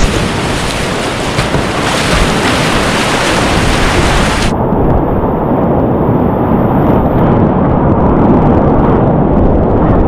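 Whitewater rapids rushing loudly against the camera's microphone. About halfway through, the high hiss drops away and the rush turns dull and muffled.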